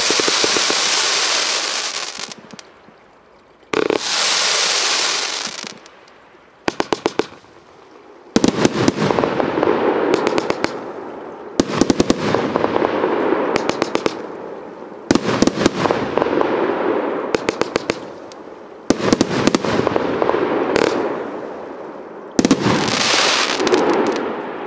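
Primed Pyrotechnics 'All In' 112-shot compound firework cake firing volleys of 20 and 30 mm shots. Each volley is a quick string of sharp launch reports followed by a dense crackling hiss that dies away. Six or seven such volleys come with short lulls between them, and the cake tails off near the end.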